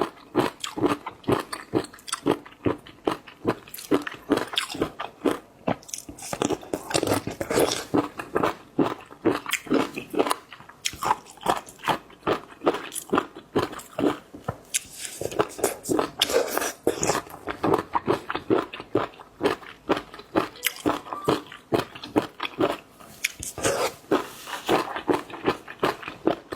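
Close-miked eating of seafood: continual wet chewing and biting with crisp crunching, a fast run of mouth clicks and crackles.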